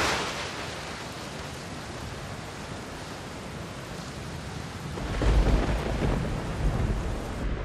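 Steady rain with thunder: a sharp clap at the start, then a deep rolling rumble that swells about five seconds in.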